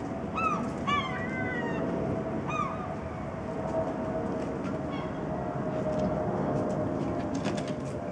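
Short honking calls, about four of them in the first three seconds, each rising then falling in pitch, over a steady rumble with a held hum that carries on throughout.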